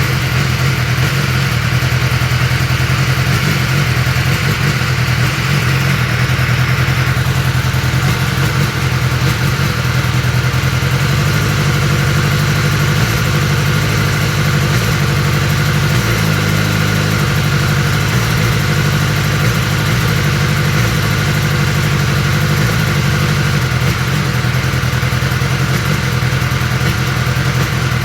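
2021 BMW S1000R's inline-four engine idling steadily, with a brief change of note about sixteen seconds in; the owner posts it as misfiring.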